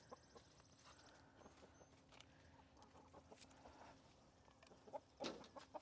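Near silence: faint scattered ticks and rustles, with a brief louder rustle near the end.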